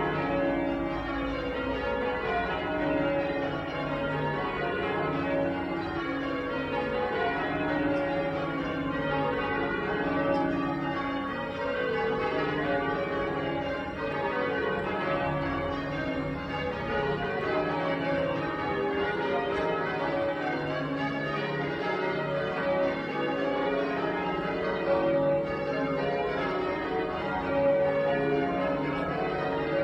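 Church tower bells in change ringing: the bells strike one after another in a continuous, even sequence, with their ringing tones overlapping.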